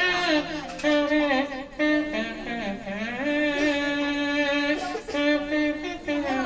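A person making a melodic, instrument-like tune with the mouth: held notes with short pitch glides between them, in several short phrases.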